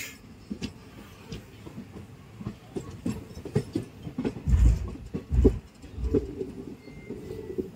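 Express passenger train's wheels running over the track, heard from inside a coach: a low rumble with irregular knocks and clicks as the wheels cross rail joints and points, and two heavier low thumps about halfway through.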